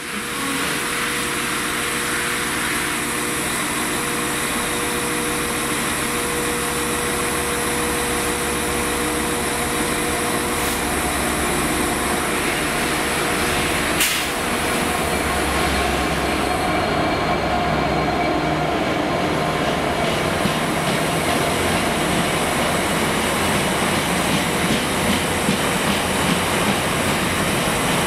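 Class 66 diesel freight locomotive running as it approaches and passes close by, its two-stroke engine a steady low rumble, with a sharp click about halfway through. A train of empty flat wagons follows it past, the wheels knocking regularly over the rail joints near the end.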